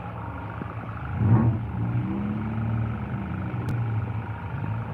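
Stock car engine running at a steady idle, blipped loudly about a second in, then revved gently up and back down.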